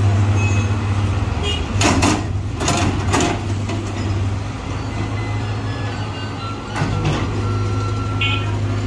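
Sumitomo SH60 mini excavator's diesel engine running steadily under digging load, with a few short loud noisy bursts about two and three seconds in and another near seven seconds. Brief high beeps sound near the end.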